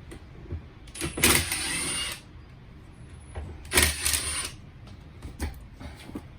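A cordless drill runs in two short bursts, each about a second long with a high motor whine, as fasteners are driven in mounting the sneeze-guard hardware. A few light clicks and knocks follow near the end.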